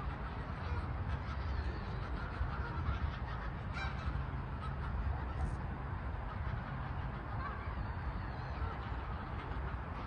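A flock of Canada and greylag geese honking and calling at close range, scattered honks over a steady low rumble.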